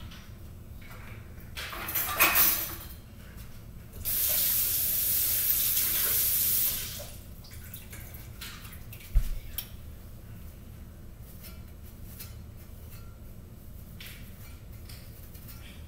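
Kitchen tap running into the sink for about three seconds, starting and stopping abruptly. Scattered clatter comes before it, and a single thump follows a couple of seconds later.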